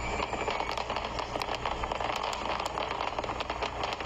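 Dense fireworks barrage: continuous crackling from many small bursts at once, over a low rumble.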